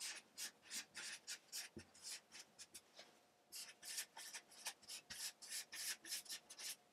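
Faint felt-tip marker strokes scratching on flip chart paper while writing, a quick run of short strokes with a pause of about a second around three seconds in.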